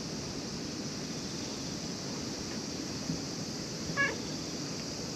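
Calico cat giving one short meow about four seconds in, over steady background noise.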